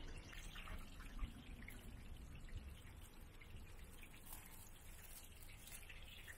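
Faint background noise with scattered light clicks and clinks.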